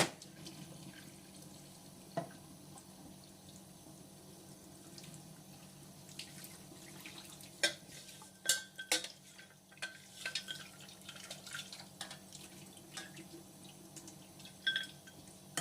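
Kitchen sink work: water with scattered light clinks and knocks of bowls and utensils, clustered about eight to eleven seconds in, over a steady low hum.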